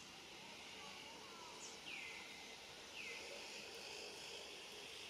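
Quiet outdoor ambience: a steady high insect hum, with two short downward-sliding calls about a second apart near the middle.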